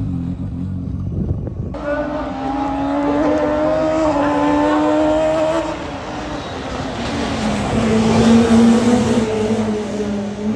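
A pack of rallycross cars racing through a corner, several engines running hard at once. Their notes slide down in pitch partway through as they brake and turn, then pick up again as they accelerate away. A low rumble opens it for the first second or two.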